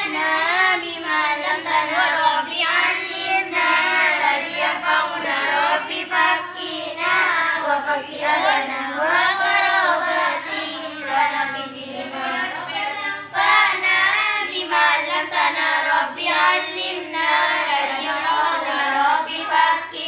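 Group of girls chanting Arabic grammar verses together in a sung, melodic recitation, without a break.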